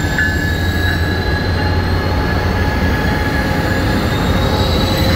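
Amtrak passenger train with two diesel locomotives passing at speed: a steady loud rumble of engines and wheels on the rails.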